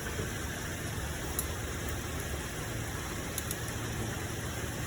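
A car engine idling steadily, with a couple of faint clicks.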